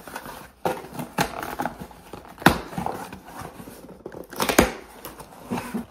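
A mail package being torn open by hand: paper and cardboard packaging rustling and ripping, with a few sharp snaps along the way.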